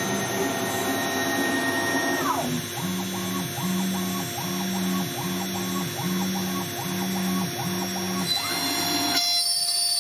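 DIY CNC router carving wood with a tapered ball-nose mill on its finishing pass: the spindle runs with a steady whine while the stepper motors whine up and down in pitch with each axis move, settling into a regular back-and-forth of about seven passes, a little over one a second. Near the end the machine sound stops and music takes over.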